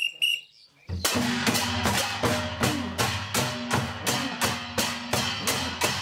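Tribal folk drumming: a steady beat of drum strokes, about three a second, with deep drum tones under sharp ringing hits. It starts about a second in, after a brief pause.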